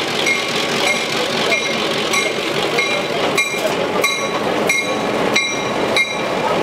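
PeruRail diesel locomotive hauling its passenger train slowly past, its engine and wheels rumbling steadily, while a bell rings in even strokes about every 0.6 seconds.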